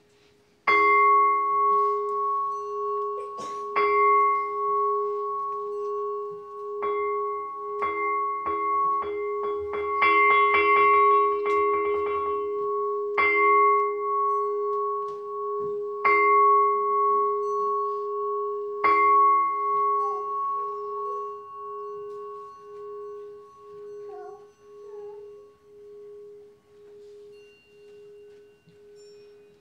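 A large bowl bell, struck by hand: three slow strikes, then a quick run of strikes that speeds up, then three more slow strikes. Its pulsing, wavering tone rings on and fades away over the last ten seconds.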